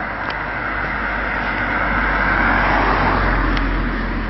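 A motor vehicle approaching at speed and passing close by: its noise swells to a peak about two and a half seconds in, then drops in pitch and fades.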